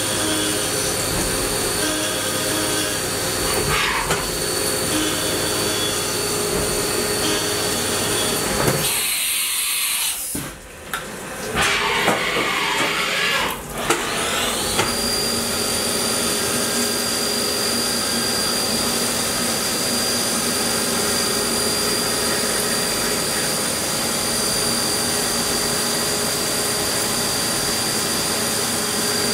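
Haas VF-2 vertical CNC machining center running: steady spindle whine with the hiss and splash of flood coolant as it mills small metal parts. About nine seconds in the sound drops briefly, then comes a stretch of knocks and hissing. From about fifteen seconds the spindle whine rises and holds a steady high pitch as cutting resumes.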